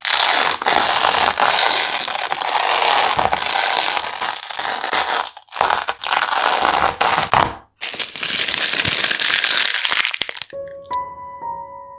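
Adhesive tape being peeled off a painted canvas: a loud, continuous crackling rip that breaks off briefly twice and stops about ten and a half seconds in. Soft piano music then comes back.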